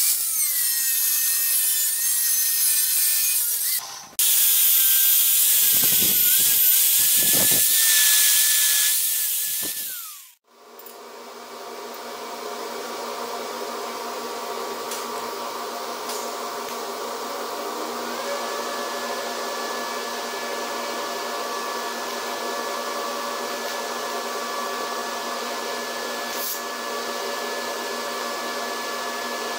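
Angle grinder grinding stainless steel sheet, its motor whine wavering and dipping under load, with a short break about four seconds in. It stops abruptly about ten seconds in, and a steady, quieter machine hum made of several tones follows.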